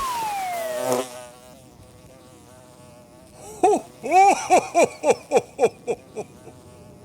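Cartoon sound effects: a falling pitch slide at the start, then a cartoon bee buzzing and chattering in a quick run of short rising-and-falling calls about halfway through.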